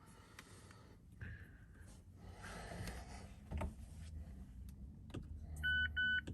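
Faint clicks and handling noise inside a car, then two short electronic beeps from the 2018 Mazda CX-5's dashboard chime near the end.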